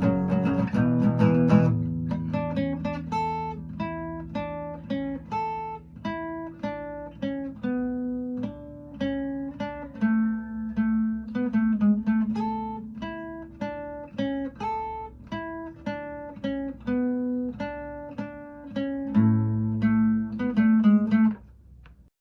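Acoustic guitar played solo: a couple of strummed chords, then a picked melody of single notes, closing with a few strummed chords that ring out and fade.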